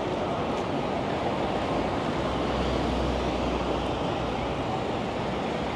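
Steady outdoor background noise with no distinct events, and a deeper low rumble swelling up from about two seconds in for a second or so.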